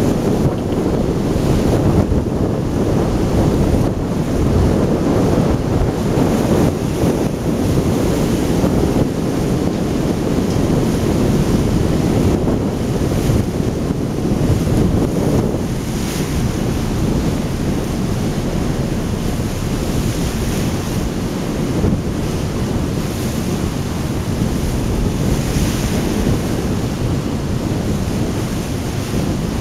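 Wind buffeting the microphone in a loud, steady rumbling rush, with no distinct events.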